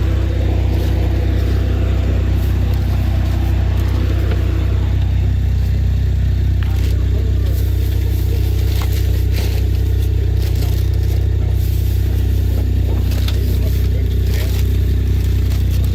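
A motor vehicle engine idling steadily, with scattered light scrapes and clicks over it.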